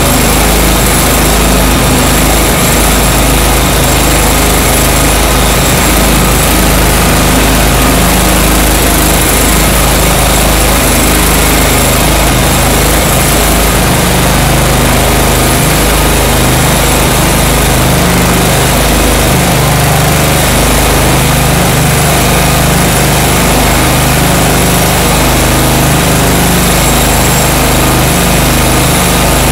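Gasoline-engine walk-behind diamond floor grinder running steadily and loudly, its diamond head grinding epoxy coating off a concrete floor.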